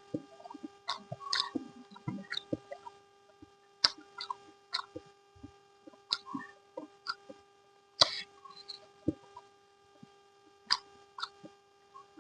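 Close-up eating sounds: wet mouth smacks and chewing clicks at irregular intervals, several a second in places, over a steady low hum.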